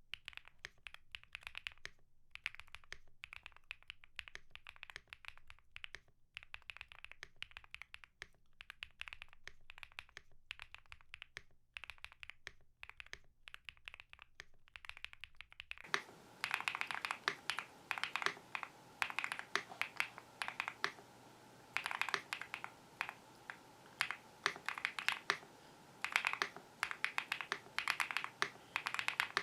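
Typing on a stock Bridge75 mechanical keyboard with MMD Princess switches, stock keycaps and all foam installed: a steady run of keystroke clacks. About halfway through, the keystrokes become louder over a raised background hiss.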